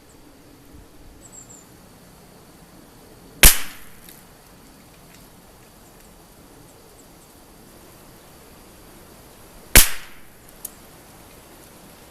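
Two shots from a Lithgow LA101 .22 LR rimfire rifle, about six seconds apart, each a sharp crack with a short tail.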